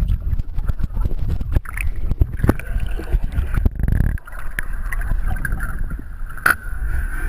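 Muffled underwater sound of shallow surf heard through a submerged camera: a dense low rumble of moving water with many sharp clicks and knocks, and a brief lull about four seconds in.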